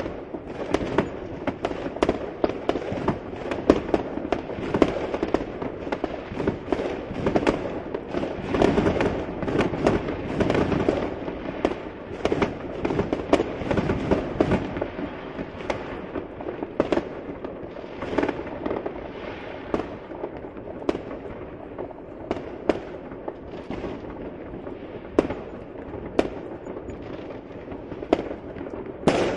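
New Year fireworks going off without a break: many sharp bangs and crackles over a constant rumble of overlapping bursts, densest around the middle.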